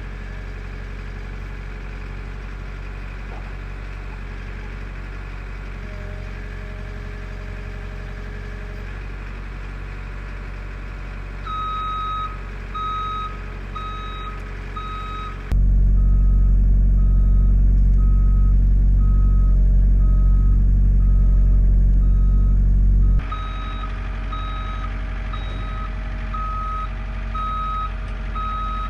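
Diesel engine of a CAT 304C mini excavator running steadily. About twelve seconds in, a travel alarm starts beeping about once a second. From about sixteen to twenty-three seconds the engine is much louder and deeper.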